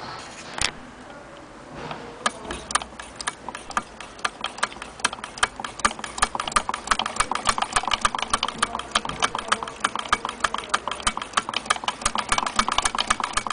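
Willcox & Gibbs chain-stitch sewing machine stitching fabric: a single sharp click near the start, then a rapid, even clicking of the needle mechanism that begins about two seconds in and speeds up to a steady pace.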